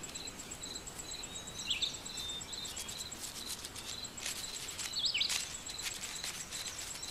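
Woodland ambience: an insect chirping in a rapid, even high pulse, a couple of brief bird chirps, and faint scattered ticks over a soft background hiss.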